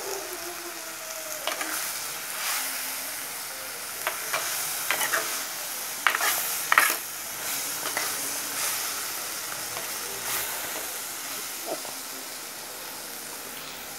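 Beetroot curry sizzling in an uncovered clay pot, with a steady hiss. A steel spoon stirs and scrapes it, clinking against the pot every second or so, loudest about halfway through.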